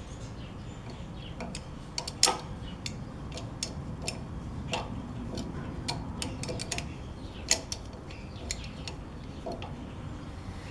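Scattered, irregular light metallic clicks and taps of hand tools and parts being worked on a metal-cutting band saw during adjustment, over a low steady background hum. The loudest clicks come about two seconds in and again past the middle.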